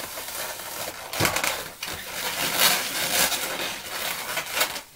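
Latex twisting balloons (white and red 260s) rubbing and squeaking against each other as one balloon is pushed through a loop twist, in a run of scraping strokes, loudest about a second in and near the middle.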